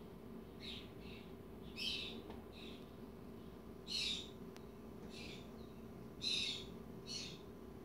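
Short, high-pitched animal calls, about nine of them at irregular intervals of roughly a second, a few of them louder than the rest.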